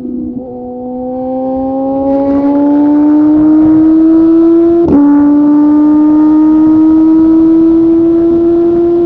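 Sport motorcycle engine pulling hard under acceleration, its pitch climbing steadily, with a quick upshift about five seconds in and another near the end. Wind rush over the microphone grows as speed builds.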